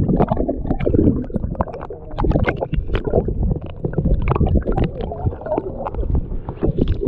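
Muffled underwater rumble and gurgling picked up by a camera held beneath the sea surface, with many short irregular knocks and clicks from water and bubbles against the housing.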